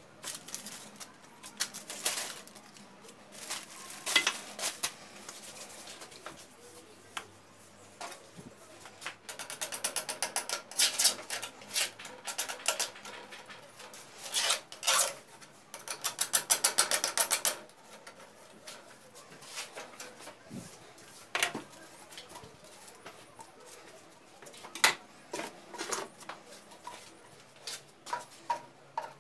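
Hands working PVC pipe and fittings, with scattered knocks and clicks. Two longer runs of rapid ratcheting, around ten and sixteen seconds in, are plastic cable ties being pulled tight.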